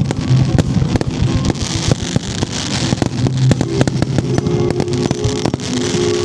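Aerial fireworks going off in a dense, rapid run of sharp bangs and crackles, dozens of reports in quick succession. Accompanying music plays under them, its held tones growing clearer in the last couple of seconds.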